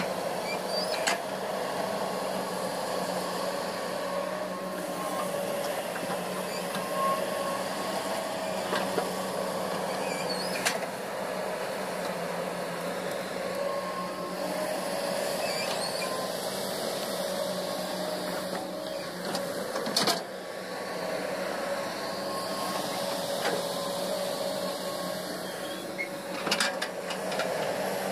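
Komatsu hydraulic excavators' diesel engines running steadily as they dig and move wet soil, with a few sharp knocks spread through.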